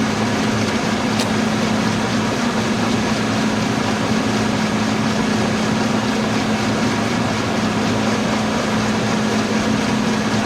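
LeBlond Dual Drive 15" x 45" engine lathe running under power, a steady machine hum of motor and spindle gearing with a faint tick about a second in.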